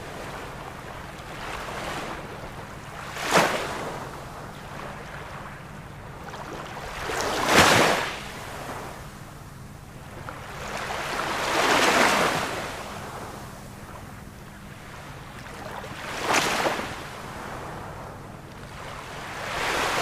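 Sea waves breaking, a surge about every four seconds over a steady wash of surf; some crash sharply and briefly, others swell up and fall away slowly.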